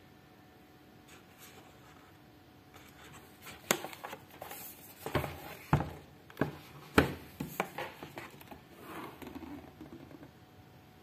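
Cardboard knife-set box and its card packaging being handled and opened: rustling with a string of sharp clicks and knocks through the middle seconds.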